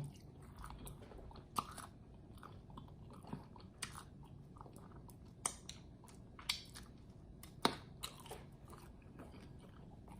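Close-up chewing and biting of a fried chicken wing, faint and wet, with several short crunchy clicks scattered through it; the sharpest comes about eight seconds in.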